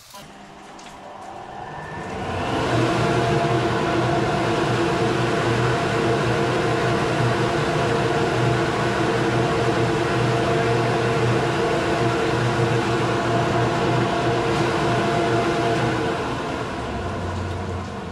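Two-bag dust collector switched on: its motor and impeller spin up over about two seconds, then run steadily with a loud rushing drone and hum, a little quieter near the end.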